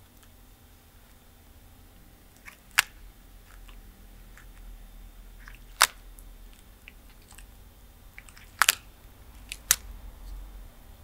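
Tortoise biting into food: sharp, separate crunches a few seconds apart, the loudest a quick pair about three-quarters of the way in, with fainter little clicks between bites.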